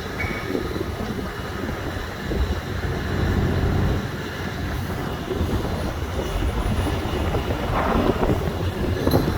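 Steady low rumble of city traffic, with a brief louder swell a few seconds in and short noisy surges near the end.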